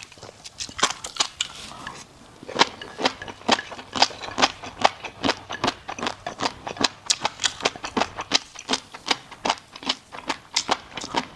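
Crunchy food chewed close to the microphone: a rapid, irregular run of sharp crisp crunches, several a second, with a brief pause about two seconds in.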